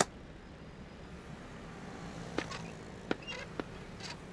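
Small motorbike engine idling with a low, steady hum. A sharp click comes right at the start, and a few light clicks and knocks follow in the second half as the rider gets off and stands the bike.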